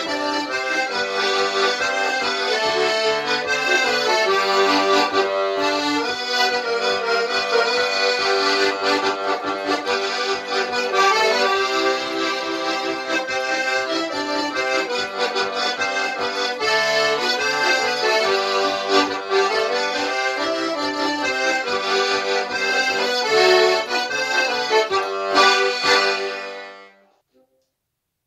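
Piano accordion playing a tune, a melody over chords and bass notes; the piece ends about 27 seconds in and the music fades out.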